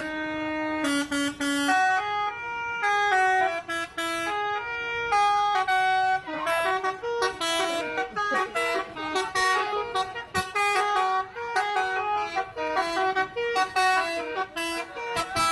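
Bus telolet horn, a multi-tone air horn, playing a tune of short stepped notes one after another. From about six seconds in the notes come faster and overlap.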